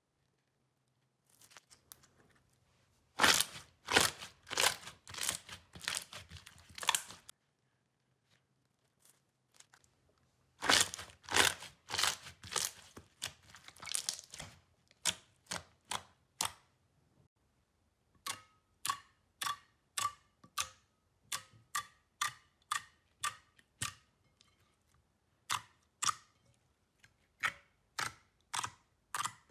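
Slime being squeezed and pressed by hand. There are two runs of dense wet crackling and popping as trapped air bursts out. After those comes a steady series of separate sticky pops, about one and a half a second, as clear slime is pressed flat.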